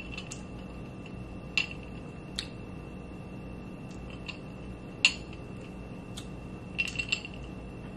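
Ice cubes clinking against a glass mason-jar mug as iced vegetable juice is sipped through a straw: scattered sharp clicks, the sharpest about five seconds in, over a faint steady high-pitched hum.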